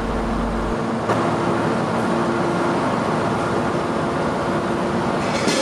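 Steady mechanical hum of a car ferry's engines and machinery heard on the open car deck, with a few steady tones in it. The deepest rumble drops away just before a short clank about a second in, and a brief clatter comes near the end.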